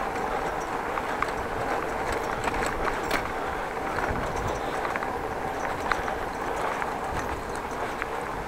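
Bicycle rolling over a brick-paved street: a steady rumble of the tyres on the pavers with scattered light clicks and rattles.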